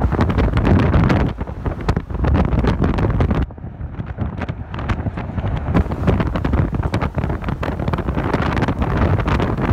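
Wind buffeting the microphone of a moving car, over a low rumble of engine and road noise. The rush dips for a moment about three and a half seconds in.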